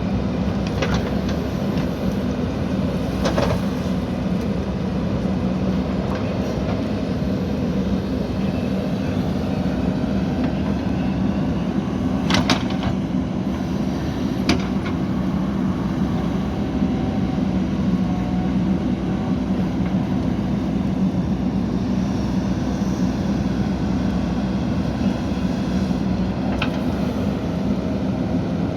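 JCB backhoe loader's diesel engine running steadily while digging, with a few sharp knocks on top, the loudest about twelve seconds in.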